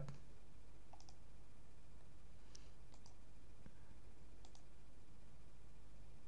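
A handful of faint computer mouse clicks, some in quick pairs, over a steady low background hum.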